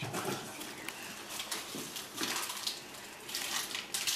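Irregular rustling and scuffing as gloved hands handle and shift an injured wild canid on a steel examination table, a few short noisy bursts a second.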